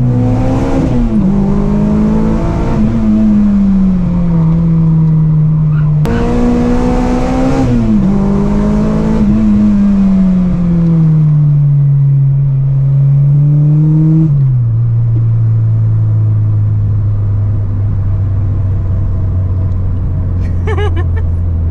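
Car engine heard from inside the cabin, its revs rising and falling as it is driven. There is a sudden jump in pitch about six seconds in and a sharp drop at about fourteen seconds, after which it settles into a steady low drone.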